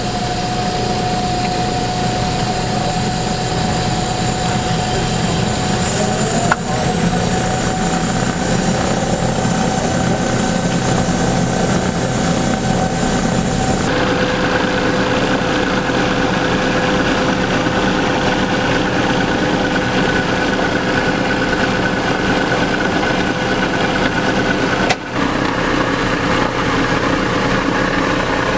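Douglas DC-3's Pratt & Whitney R-1830 radial piston engines running steadily on the ground, a loud, even drone heard inside the aircraft. The tone of the drone shifts abruptly about halfway through.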